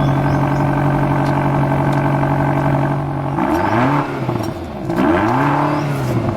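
Cartoon vehicle engine sound effect, running at a steady pitch, then revving up and back down twice in the second half.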